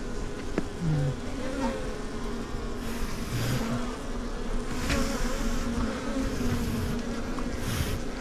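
Swarm of Asian honeybees (Apis cerana) buzzing around an opened hive: a dense, wavering hum, with a few brief rustles.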